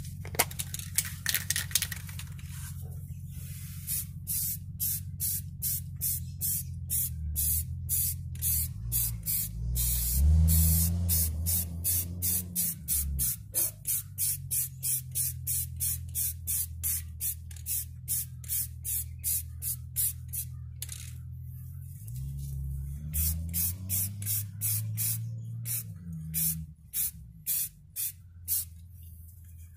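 Rust-Oleum American Accents 2X flat gray primer spray can spraying, first in a longer hiss, then in many short hissing bursts at about two a second. A low rumble swells beneath it about a third of the way in and again later.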